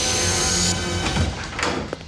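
Cartoon soundtrack music with a high, slowly rising whistle-like tone that cuts off suddenly under a second in. A couple of quick swooping sound effects follow, and the sound drops away near the end.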